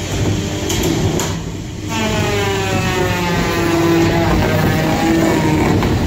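Small combat robots' electric motors whining as they fight in the arena, with a couple of sharp clanks about a second in. From about two seconds in, a strong motor whine with many overtones wavers in pitch.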